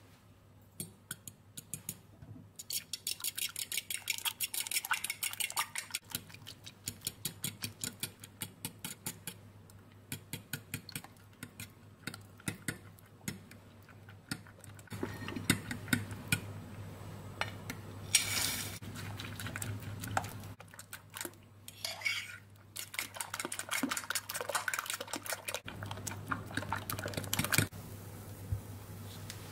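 Metal fork beating eggs in a bowl, clinking rapidly against the sides. The strokes slow after a few seconds, then turn to denser stirring as the mixture thickens.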